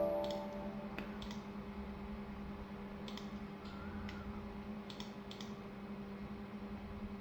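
Scattered computer keyboard and mouse clicks, a few at a time and some in pairs, as serial terminal settings are entered, over a steady low hum.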